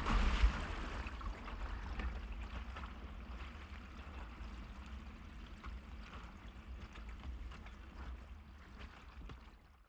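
Tail of an outro logo sting: a low rumble under an even, water-like hiss, slowly dying away and cutting off near the end.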